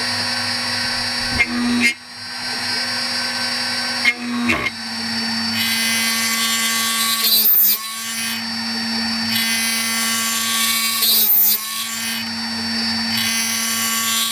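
CNC machine spindle running steadily, peck-drilling aluminium plate with a cobalt stub drill bit. About every three to four seconds, four times, the bit plunges into the metal and the sound turns briefly harsh and louder: the bit shudders on each plunge even at low spindle speed and small step-downs.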